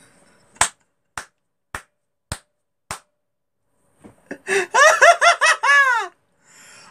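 A man's laughter: five sharp, evenly spaced smacks about half a second apart, then a burst of high-pitched laughing about four seconds in.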